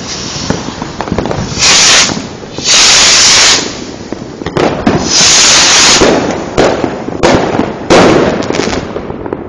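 Fireworks going off in a dense run of pops and crackles. Four loud hissing bursts overload the recording, the longest lasting nearly a second.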